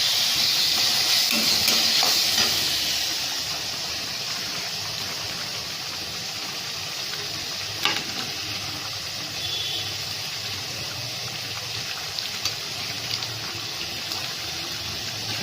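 Onions, tomatoes and curry leaves sizzling as they fry in oil in a kadai. The sizzle is louder for the first few seconds, then steady, with one light clink about eight seconds in.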